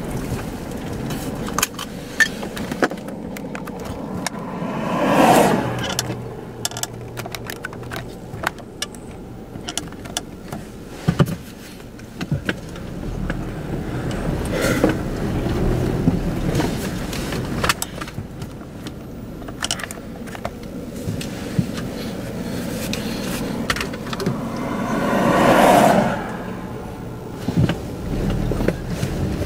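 Vehicles driving past on a dirt road, two louder swells rising and falling about five seconds in and again near the end, over a steady low rumble with scattered clicks and taps.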